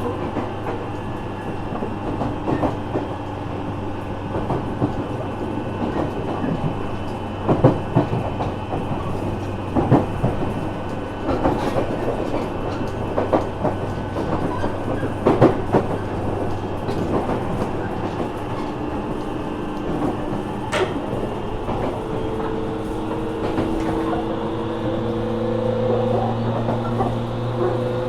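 JR Kyushu 415 series 1500 subseries EMU motor car running on the line, with a steady hum and wheels knocking over rail joints. From about two thirds of the way in, a whine climbs slowly in pitch as the traction motors pull the train faster. The unit is labelled an odd-noise car.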